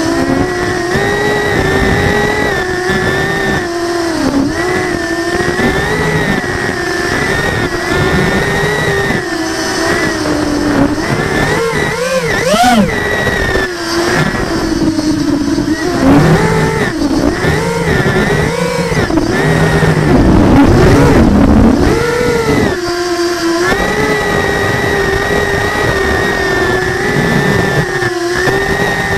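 Multirotor drone motors and DAL 6045 propellers whining in flight, the pitch wavering with every throttle change. About twelve seconds in there is a quick surge up and back down, then the whine swells and dips repeatedly for several seconds before settling into a steady cruise.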